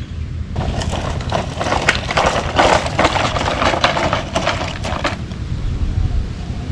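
Loose gravel crunching, a dense crackle of many small clicks that starts about half a second in and stops about five seconds in.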